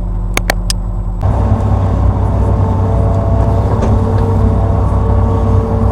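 Hitachi Zaxis 210-5G hydraulic excavator's diesel engine running, with three sharp clicks in the first second. About a second in, the sound turns abruptly louder and fuller: the engine working under load, with steady hydraulic tones over it.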